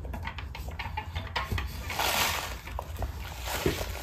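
A plastic furikake seasoning packet rustling and crinkling as a toddler handles and turns it in her hands, loudest for a moment about two seconds in.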